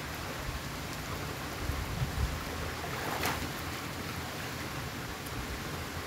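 Steady wash of water in a spring-fed open-air pool, with people wading and swimming through it; one short splash about three seconds in.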